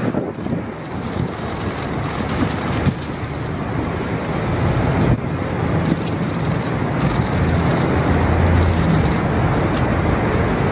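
Street traffic noise with a motor vehicle's engine running; a low hum grows strongest about seven to nine seconds in.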